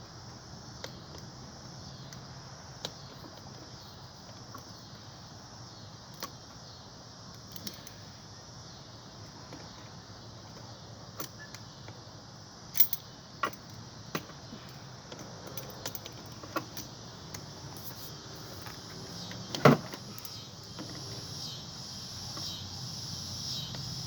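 Hand tools clicking and tapping against the metal parts of an ice maker being taken apart. The light clicks are scattered, with two sharper knocks just past halfway and one loud knock toward the end.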